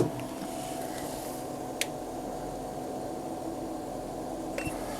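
A steady mechanical hum with faint steady tones in it, broken by two light clicks, one about two seconds in and one near the end.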